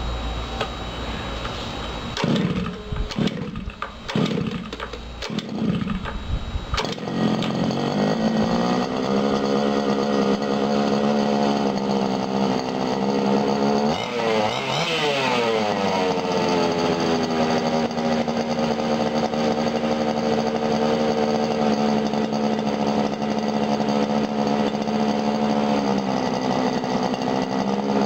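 Zenoah G230RC two-stroke race engine on a Go-Ped being started: it sputters in a few uneven bursts, catches about seven seconds in and settles into a steady, buzzing idle. About halfway through it is blipped once, its pitch rising and falling, and then it idles on.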